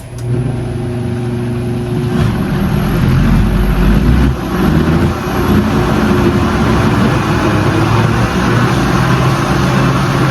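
Countertop blender motor running, blending a thick green salsa verde; it starts, gets louder about two seconds in, then runs steadily.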